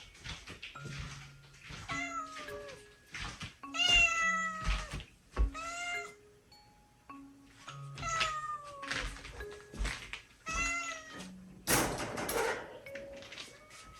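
A domestic cat meowing repeatedly, about five calls, each falling in pitch, the loudest about four seconds in. Soft background music plays under the calls, and a brief burst of rustling noise comes near the end.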